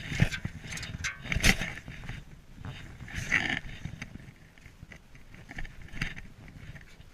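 Snow being dug out by hand: irregular crunching scrapes with a few sharp knocks, the loudest about one and a half seconds in.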